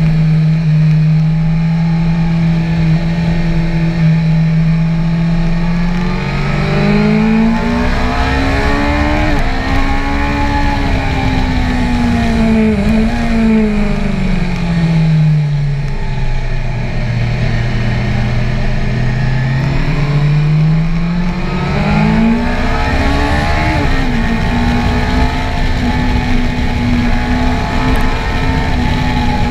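BMW S1000R's inline-four engine under way on track, its note swinging with the throttle: steady at first, rising about a quarter of the way in, dropping to a low steady note around the middle, then rising again and holding a higher steady note to the end. Wind rush on the microphone runs underneath.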